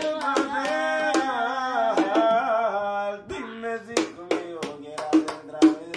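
A voice sings one long, wavering wordless note for about three seconds over hand-tapped percussion. Then the taps go on alone, a steady beat of a few knocks a second.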